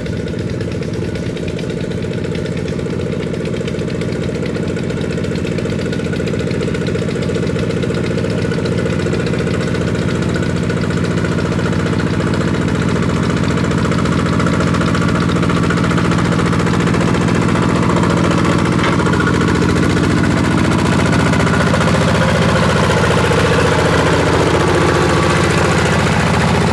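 Two-wheel walking tractor's single-cylinder diesel engine running steadily under load with a fast knocking beat as it tills a paddy field on cage wheels; it grows gradually louder.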